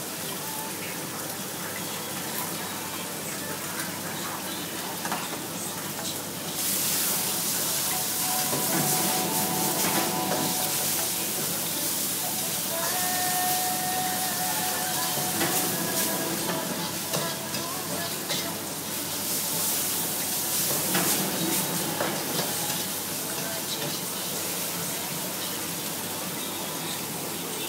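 Pad thai stir-frying in a wok over a high-flame gas burner: a steady sizzle that grows much louder about six seconds in, with the clatter of the food being stirred in the wok.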